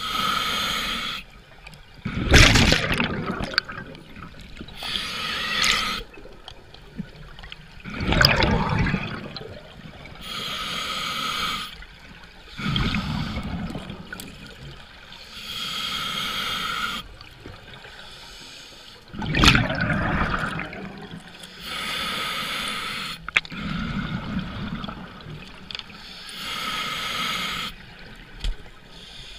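Scuba diver breathing through a regulator underwater: a hissing inhale, then a loud rush of exhaled bubbles, repeating about every five seconds.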